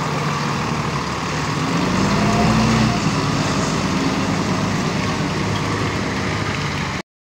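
Mahindra heavy truck's diesel engine running as the lorry moves past, its note rising and growing louder about two seconds in, then settling. The sound cuts off suddenly near the end.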